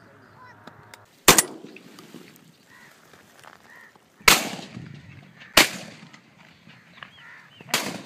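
Four sharp gunshots at uneven intervals: one about a second in, two close together in the middle and one near the end.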